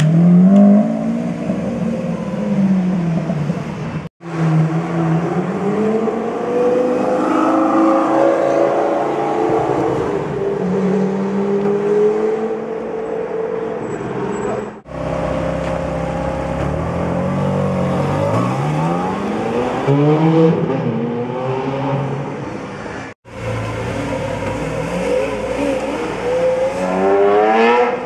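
Supercar engines, among them a Lamborghini Aventador's V12, revving and accelerating away in a string of short clips. The engine pitch rises and falls through the gears, and the sound cuts off abruptly three times between clips.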